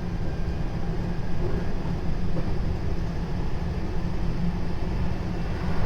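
Running noise heard inside a JR West 223 series 0 electric train carriage: a steady low rumble of wheels on rail with an even hiss above it.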